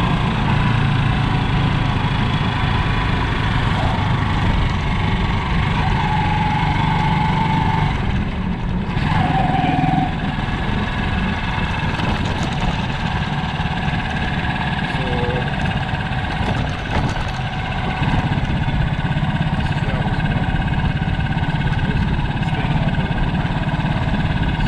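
An engine running steadily, its low hum strongest in the first ten seconds.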